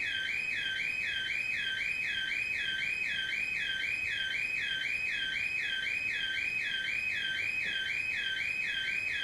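A high electronic tone warbling up and down about three times a second, steady and unbroken.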